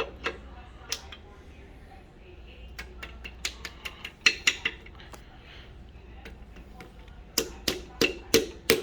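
A piston being tapped down through a ring compressor into an LS3 engine's cylinder bore. A few scattered light clicks and knocks come first, then near the end a steady run of sharp taps, about three a second.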